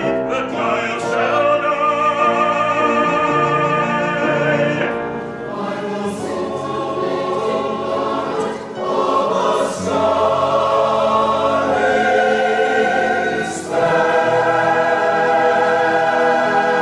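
Opera singing with a wide vibrato, in sections that change abruptly about 5 and 14 seconds in: a woman's solo voice, then a choir singing full near the end.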